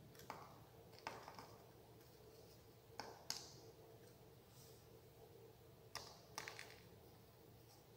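Faint, scattered small clicks and taps, about six in all, from wires and small metal terminals being handled and soldered on a wiring board. Between them, a quiet steady room hum.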